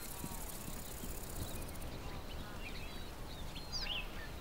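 Faint, scattered bird chirps, short rising and falling calls, over a low, steady background rumble of open-air ambience.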